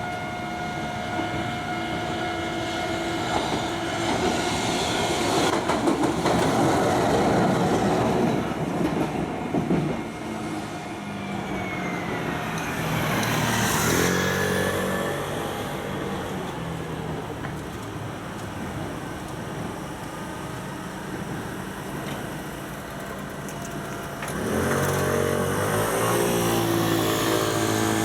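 A train crossing a level crossing, its wheels clattering over the rails, loudest about five to nine seconds in. Later a pitched motor hum climbs in steps, and climbs again near the end.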